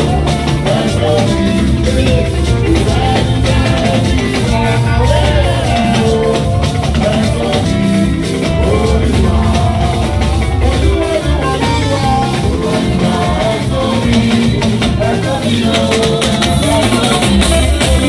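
Live band music with group singing, hand shakers and drums keeping a steady, loud beat.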